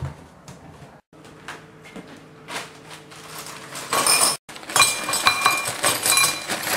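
Small metal scraps pouring out of a cereal box and clattering into a ceramic bowl: a dense metallic rattle with ringing tones, starting about four seconds in after a few quiet knocks.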